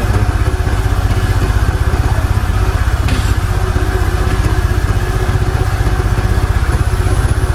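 Honda Air Blade 110 scooter engine running steadily, loaded by its charging regulator feeding the battery and lighting a bank of test bulbs.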